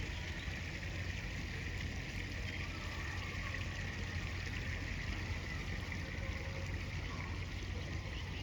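Steady rushing of river water flowing around the angler, an even, unbroken wash with no distinct events.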